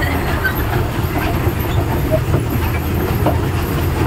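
Amusement-park toy train running along its track: a steady low rumble of wheels and carriages.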